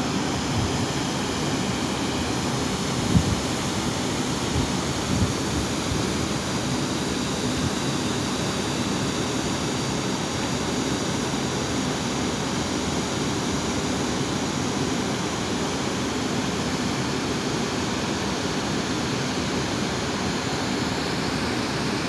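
Wide waterfall rushing steadily, with a brief low thump about three seconds in.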